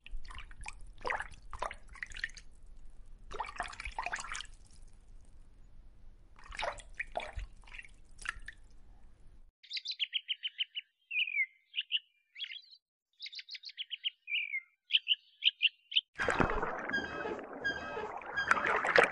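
Scattered sharp clicks over a low hum, then from about ten seconds in an American robin singing short whistled phrases and quick trills with gaps between them. Near the end, a dense rushing noise with repeated chirps takes over.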